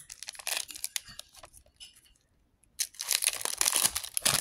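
Cellophane shrink-wrap being torn off a sealed deck of trading cards and crinkling: short rustling bursts in the first second, then a longer, louder stretch of crinkling near the end.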